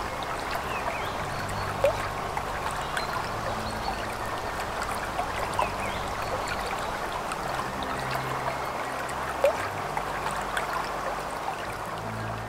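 River water running over stones, a steady rushing and babbling, with two brief louder plips about seven seconds apart.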